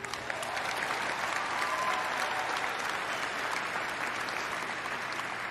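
Large audience applauding, dense clapping that comes in quickly at the start, holds steady and eases slightly near the end.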